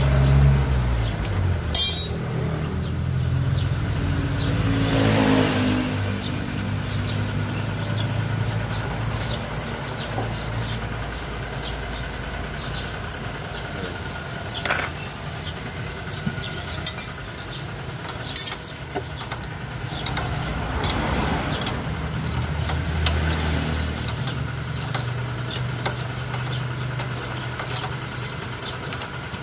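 Motor vehicles passing by, their engine hum swelling and fading twice, with a few sharp clicks.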